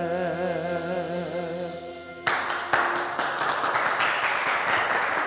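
A voice holds the last sung note of a slow song with a wide vibrato over a steady backing chord. About two seconds in, the singing stops and a group breaks into applause that continues.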